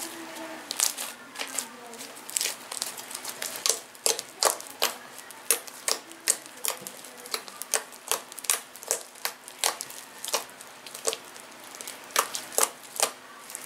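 Homemade glue slime being pressed and squeezed by hand, giving a string of sharp irregular clicks and pops, about two to three a second, as trapped air pockets pop.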